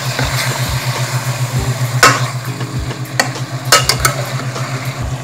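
Metal spatula stirring raw chicken pieces in a pot, the chicken sizzling in butter with sautéed onion and garlic, with a few sharp clinks of the utensil against the pot about two seconds in and again past the middle. A steady low hum runs underneath.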